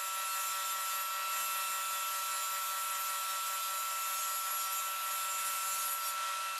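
Delta 36-5100 table saw running steadily while ripping a strip of plywood, a steady motor hum under the noise of the blade cutting.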